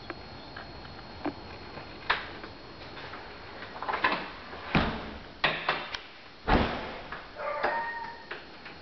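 A door being shut and handled: a string of knocks, clicks and thumps, the loudest about six and a half seconds in, with short squeaks near the end.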